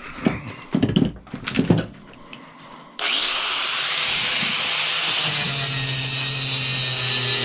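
A few sharp metal clanks in the first two seconds. About three seconds in, a power tool starts abruptly and runs steadily, working on a scrap part, with a low hum joining its whine about five seconds in.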